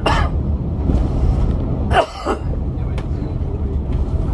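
Volvo B8L double-decker bus under way, heard from on board: steady low rumble of its Volvo D8K diesel engine and road noise. Two brief harsh sounds cut in, one at the very start and one about two seconds in.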